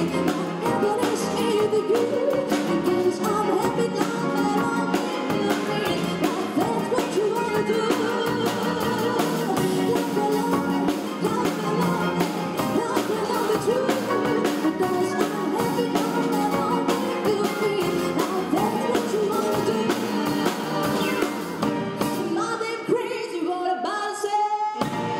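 A woman sings into a microphone, backed by a string ensemble of violins, cello and double bass with a drum kit keeping a steady beat. Near the end the accompaniment thins out.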